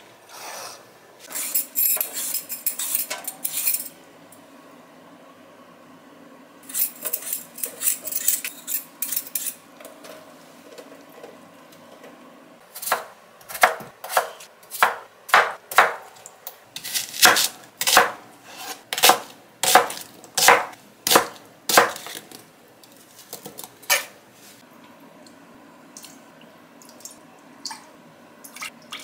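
Kitchen knife chopping peeled potatoes on a cutting board: a run of about fifteen sharp strikes, roughly two a second. Before it come two short spells of rustling and clinking from handling food and a glass bowl.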